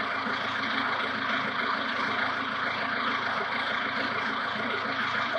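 Ford 1920 compact tractor's three-cylinder diesel engine idling steadily.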